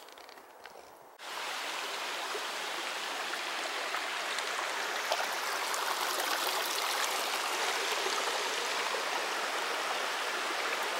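Small mountain stream running over rocks, a steady splashing hiss of water that begins abruptly about a second in.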